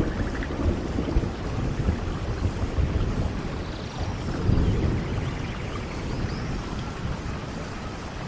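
Steady rain with low rolling thunder rumbling, swelling about halfway through. Faint high chirping calls sound over the rain.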